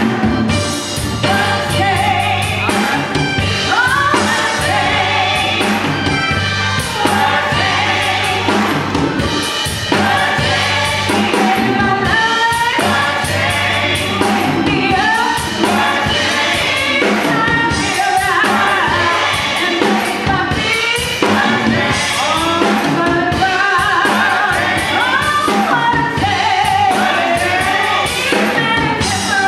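Live gospel singing: women's voices sung into handheld microphones through a church sound system, with instrumental accompaniment and a steady held bass note underneath.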